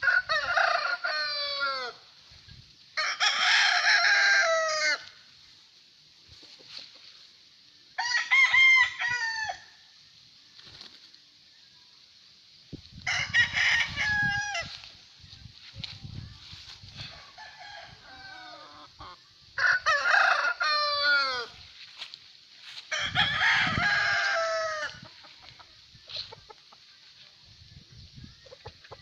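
Gamefowl roosters crowing in turn, about seven crows of a couple of seconds each, some overlapping, with quieter gaps between them.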